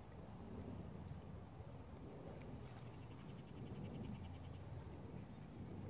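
Faint insect chirping by a pond, with a short run of fast, even chirps about three seconds in.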